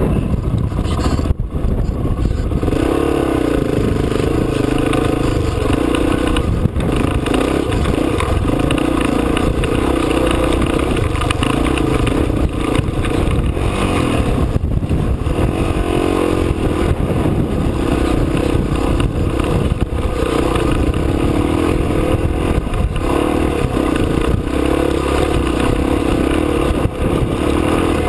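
Honda trail bike's engine running under constantly changing throttle as it is ridden over a rough, rocky dirt track, with the engine note rising and falling and the bike rattling over the stones. The engine note becomes prominent about two and a half seconds in.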